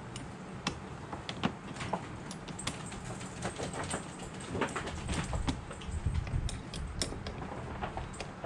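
Irregular small metallic clicks and clinks of hand tools and car parts being handled, with a low rumbling handling noise that swells about five to seven seconds in.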